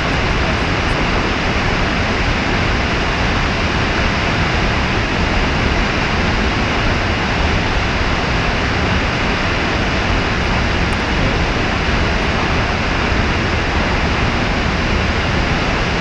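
Snoqualmie Falls roaring: a steady, even rush of falling water with a deep low rumble.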